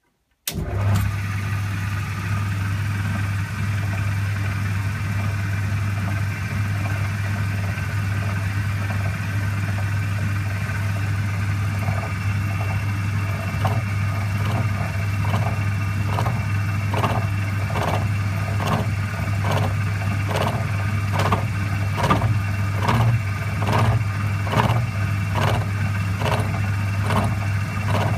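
Ajax horizontal milling machine switched on about half a second in, its motor and gearing running with a steady hum and gear whine. From about twelve seconds in, its toothed disc cutter on the arbor is cutting a metal bar, adding a regular clack a little faster than once a second.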